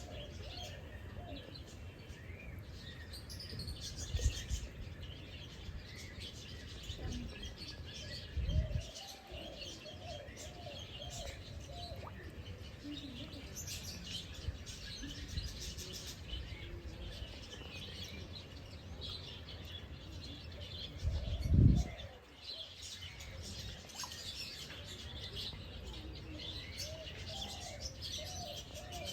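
Many birds chirping and calling over and over. Three short low thumps or rumbles interrupt it, the loudest about three-quarters of the way through.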